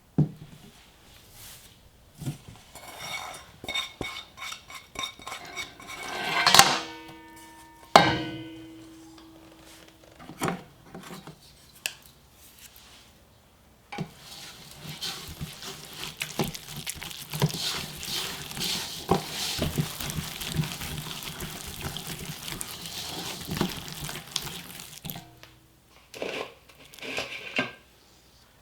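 Kitchen prep sounds of dishes and utensils: scattered clinks and knocks, then a single ringing clang about eight seconds in. From about halfway through comes a long stretch of steady rustling with small clicks, which stops a few seconds before the end.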